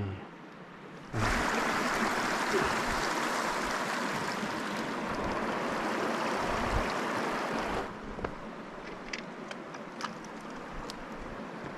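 Steady rush of running stream water that starts abruptly about a second in and cuts off abruptly near eight seconds. Then a quieter background with a few scattered sharp clicks.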